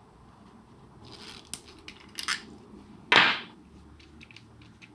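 Light handling sounds on a wooden desk as swatch cards and a fountain pen are picked up and moved: a few small clicks and taps, then one brief louder scrape about three seconds in.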